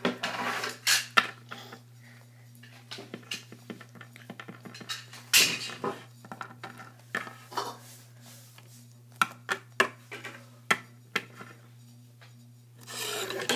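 Small plastic toy figures and playset pieces being picked up, handled and set down on a tabletop: scattered light clicks and knocks, with a louder knock about five and a half seconds in.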